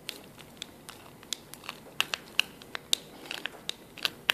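A screw being turned by hand with a screwdriver into a pre-drilled hole in wood, giving irregular small sharp clicks and crunches as the threads bite.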